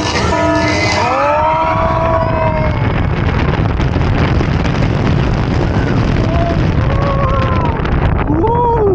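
Blue Fire launch coaster's linear-motor launch: a whine rises in pitch about a second in and levels off, then a steady loud rush of wind and track noise as the train speeds out of the tunnel and up the hill. A rider's voice cries out near the end.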